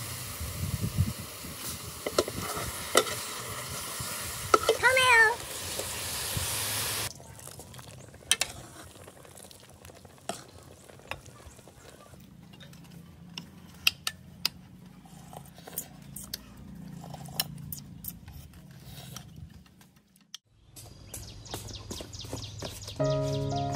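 Pieces of fish tipped from a bamboo basket into a pot of broth, with a steady hiss of cooking and scattered knocks that cut off after about seven seconds. Scattered light clinks of utensils and dishes follow, and music starts near the end.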